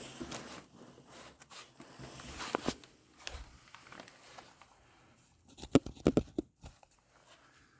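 Scattered small clicks, knocks and rustling of hand work on a scooter's exhaust parts while a gasket is fitted, with a quick run of sharper knocks about six seconds in.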